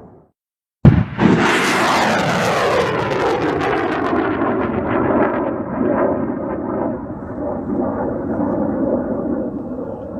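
Rocket launch sound effect: a sudden loud blast of ignition about a second in, then a sustained engine roar with a slowly falling whine in it.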